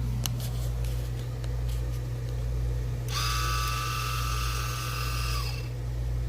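Flo by Moen smart water shutoff's motorized valve running to open the water back on: a steady electric motor whine lasting about two and a half seconds, starting about three seconds in and then stopping.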